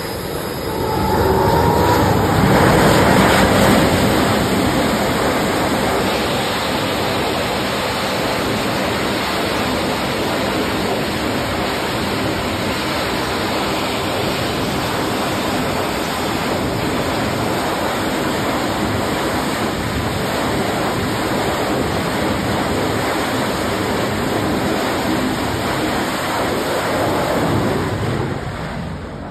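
F/A-18 Super Hornet twin jet engines running at high power on a carrier deck as jets are readied on the catapult and launched. The noise swells a second or two in, holds steady and loud, and falls away near the end.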